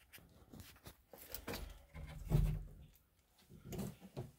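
Footsteps and scuffs on old wooden basement stairs, with a louder low creak about two and a half seconds in.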